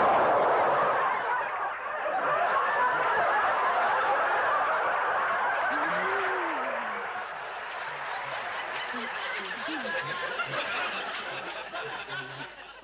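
Studio audience laughing, a long wave of laughter that is loudest at the start and slowly dies away near the end.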